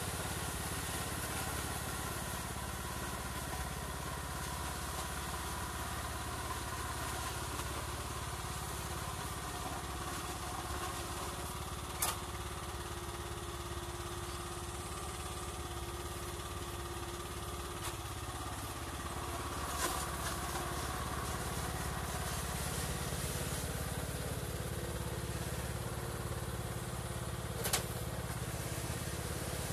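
Riding lawn tractor's small engine running steadily as it works back and forth, with a few short sharp knocks along the way.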